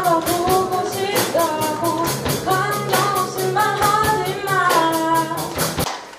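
Live rock band: a woman singing into a microphone over electric guitars, bass and a drum kit with a steady beat. The music stops abruptly near the end.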